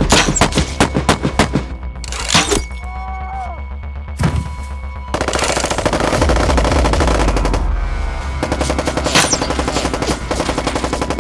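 Rapid automatic-fire sound effects over background music with a steady bass. Quick strings of shots in the first two seconds, a few single shots, then a long dense burst from about five seconds in and another rapid run near the end.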